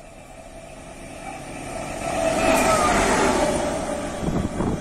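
Diesel locomotive running light past at speed. Its engine and wheels grow louder, peak as it passes about two and a half seconds in, and fade away, with the engine's pitch dropping as it goes by. Heavy low rumbles come near the end.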